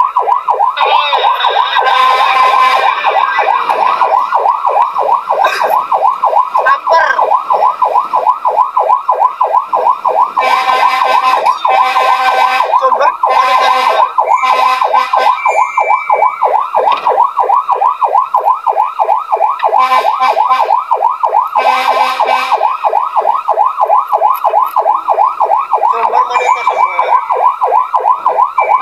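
Fire engine siren sounding in a fast, rapid up-and-down warble, several cycles a second. A few times it is joined for a couple of seconds by a harsher steady horn-like tone.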